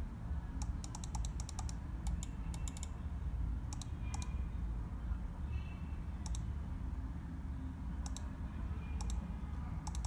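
Quick runs of short, sharp plastic clicks from computer input, several clicks in a row at a time, with gaps between the runs, over a steady low hum.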